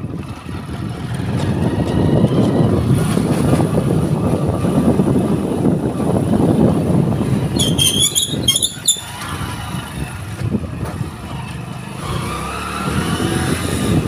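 Motorcycle being ridden: the engine runs under a steady rumble of wind noise on the microphone. A few short high-pitched chirps come about eight seconds in.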